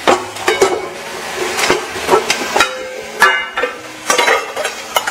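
Steel kitchen containers and utensils clinking and knocking on a counter, a few strikes ringing briefly.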